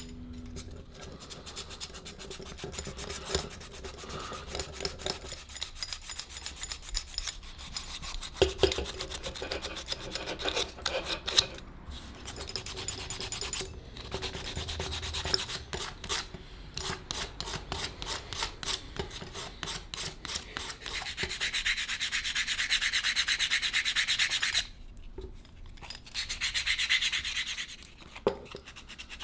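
Sandpaper rubbed by hand over the wooden crank handles of a 19th-century rotary egg beater, in rapid back-and-forth strokes, stopping briefly twice near the end.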